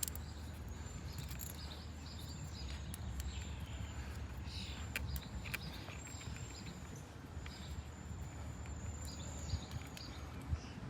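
Steady low outdoor background noise with a faint high steady tone, and a few light clicks as new brake pads are pushed up and aligned in a motorcycle disc-brake caliper.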